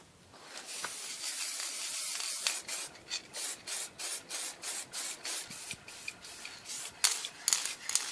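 Aerosol spray paint can hissing: one long spray, then a string of short spurts about two or three a second as the can runs out of paint.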